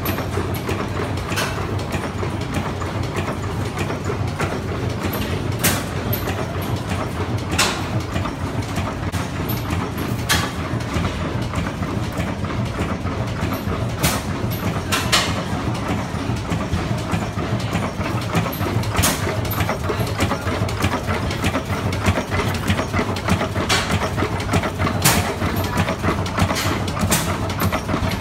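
Antique stationary flywheel gas engines running with a steady low chugging drone, broken by sharp bangs at irregular gaps of one to several seconds.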